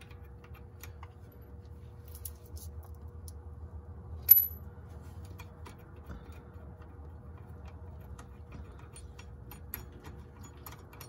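Quiet scattered metallic clicks and ticks from a socket tool on the E12 external Torx bolts of a BMW E46's driveshaft-to-differential joint as they are unscrewed and pulled out, with one sharp ringing metal clink about four seconds in.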